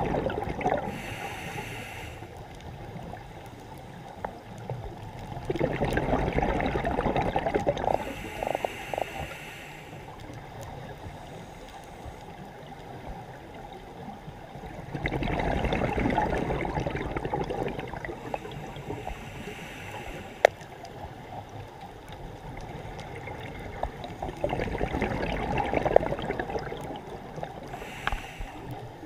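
Scuba diver breathing slowly through a regulator underwater. Each breath brings a short hiss from the demand valve and a burst of exhaled bubbles lasting a couple of seconds, about four breaths in all.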